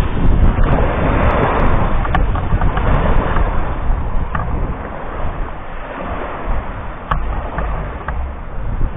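Wind buffeting the microphone: a loud, steady rushing noise with a heavy low rumble that eases a little about halfway through, with a few faint clicks.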